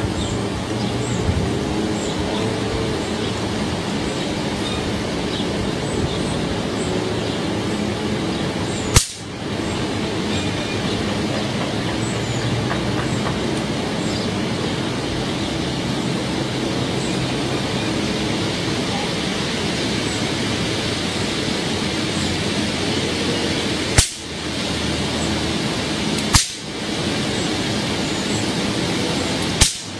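Steady rushing noise throughout, broken by four sharp snaps from the electrified high-voltage trap: one about nine seconds in and three close together near the end.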